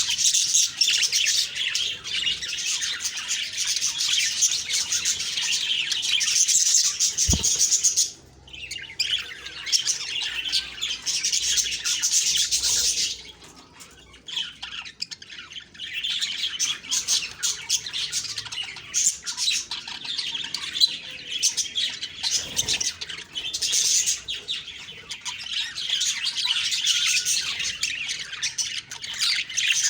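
Budgerigars chattering and chirping in rapid, dense warbles, with a brief lull about eight seconds in and a longer one around fourteen seconds in. A single low thump just before the first lull.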